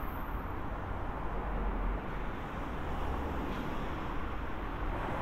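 Steady low rumble of outdoor city background noise with distant traffic.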